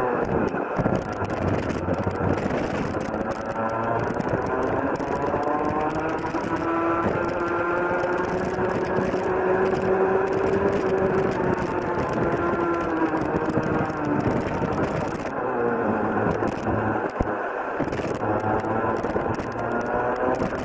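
Rotax Junior Max 125cc two-stroke kart engine under full throttle. The revs climb steadily for about ten seconds as the kart accelerates, fall away as it slows for a corner, then climb again near the end.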